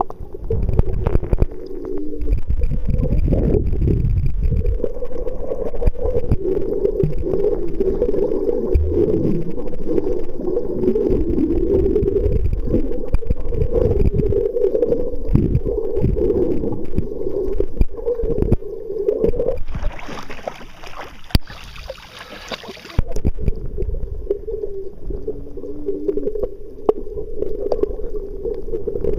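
Muffled underwater sound from a submerged waterproof camera: a steady low rumble of seawater moving past the housing, with bubbles. About twenty seconds in the rumble drops away for a few seconds and a hiss takes its place.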